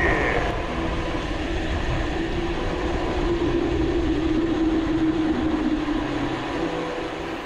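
Steady riding noise from a moving mountain bike on a road: wind rushing over the action camera's microphone with a rumble and a steady hum that fades slightly near the end.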